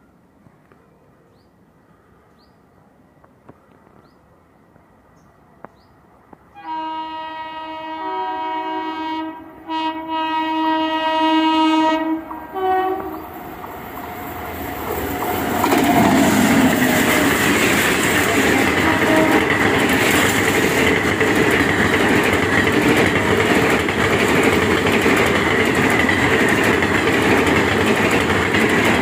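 Horn of the 19031 Yoga Express sounding about seven seconds in: one long chord-like blast with a short break, then a brief last toot. The train then passes close at about 110 km/h with its ICF coaches, a loud steady rush with wheels clattering over the rail joints.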